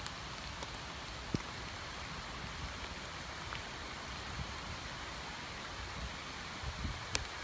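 Steady rain falling on a flooded pond, an even hiss of drops on the water, with a few louder single drops standing out, one about a second in and one near the end.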